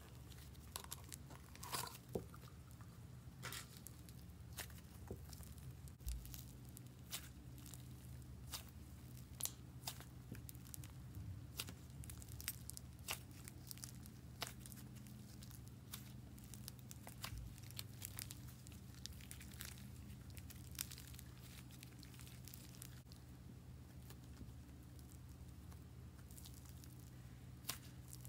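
Soft butter slime squeezed, stretched and folded by hand, giving irregular small clicks and crackles, over a steady low hum.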